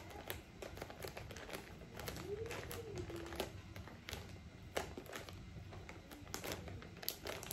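Faint rustling and scattered light clicks of things being handled in a small room, with one brief faint rising-and-falling tone, like a voice, about two and a half seconds in.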